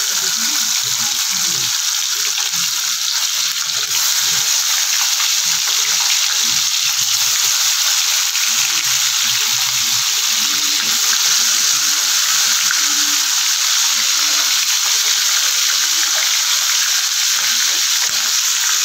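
Koi fish (climbing perch) frying in hot mustard oil in a kadai: a loud, steady sizzle of bubbling oil.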